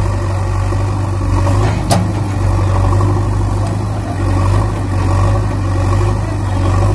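Engine idling steadily with a low hum, an engine sound effect laid over the silent toy excavator; one short click about two seconds in.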